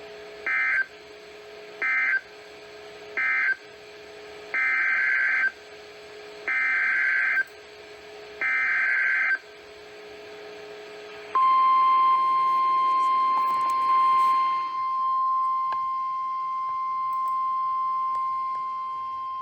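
NOAA Weather Radio Emergency Alert System signals received over the air. First come three short warbling bursts of SAME digital data, the end-of-message code closing the previous warning. Then come three longer SAME header bursts announcing a new tornado warning, and about eleven seconds in the steady single-pitch 1050 Hz Weather Radio warning alarm tone begins and holds.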